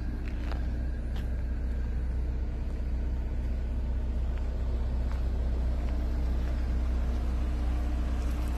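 A car engine idling steadily: a low rumble with a constant hum.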